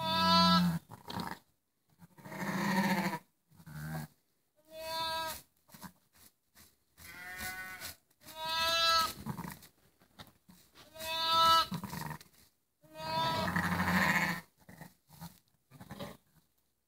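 Sheep bleating repeatedly, about seven calls spaced two seconds or so apart. Some calls are deep and others higher-pitched with a quaver.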